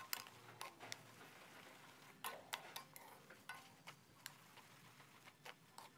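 Faint stir-frying: a wooden spatula scraping and knocking against the pan at irregular moments over a low sizzle, as glass noodles, egg and cabbage are tossed with their seasoning.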